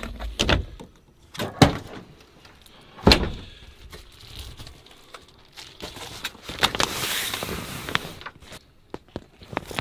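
Clunks and clicks of a pickup's ARE camper-shell rear window latch and tailgate being opened, the loudest a few seconds apart. Later there is a longer rustle of a nylon duffel bag being shifted in the truck bed.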